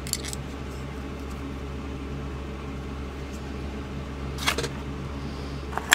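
A steady low machine hum, with one brief handling noise about four and a half seconds in.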